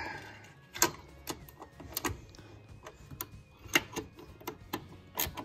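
Sparse, irregular metallic clicks and taps of a socket wrench on the 13 mm nuts of the 2009 Camry's rear strut-mount studs, worked by hand inside the trunk.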